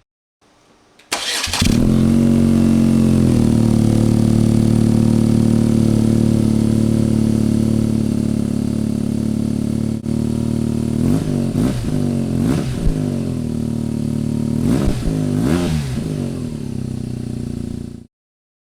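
BMW R12 nineT boxer twin with an SC-Project CR-T exhaust starting about a second in, a fast idle dropping to a steady idle, then five quick throttle blips that rise and fall. The exhaust note is dry and heavy. The sound stops abruptly near the end.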